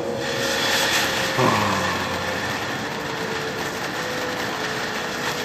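Ground fountain firework catching just after the start and spraying sparks with a steady hiss and crackle. A short falling pitched sound comes about a second and a half in.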